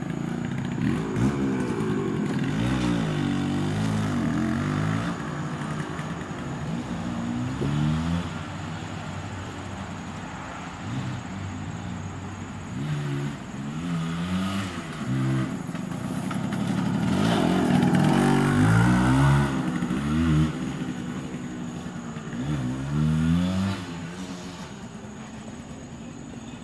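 Suzuki A100 motorcycle's single-cylinder two-stroke engine being ridden, its pitch climbing and dropping again and again as it revs up through the gears and back off. It is loudest about two-thirds of the way through and quieter near the end.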